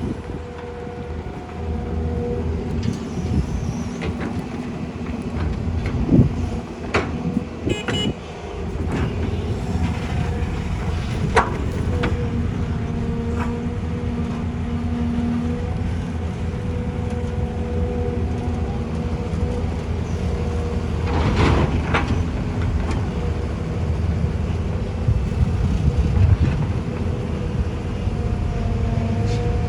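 Diesel excavator and dump trucks working: engines running steadily with a humming tone over a low rumble, broken by several clanks and thuds, the heaviest about six, eight, eleven and twenty-one seconds in.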